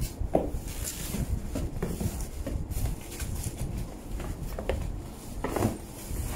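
Cardboard boxes and a paper booklet being handled during an unboxing: rustling and scattered light knocks, with two louder scrapes about half a second in and near the end.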